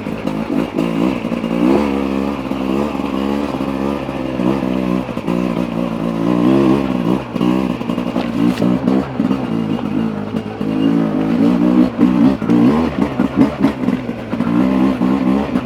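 Beta RR 300 single-cylinder two-stroke enduro engine under way off-road, its revs rising and falling over and over as the throttle is rolled on and off.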